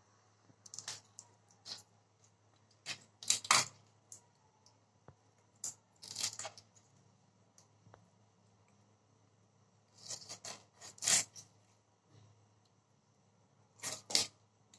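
Magur catfish being scraped and cut against the edge of a foot-held boti blade: short rasping scrapes that come in bunches every few seconds. A low steady hum runs underneath.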